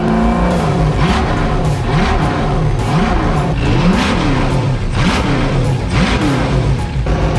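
6.0-litre LS V8 engine in a jet ski running and being revved by hand at the throttle, its note rising and falling about once a second.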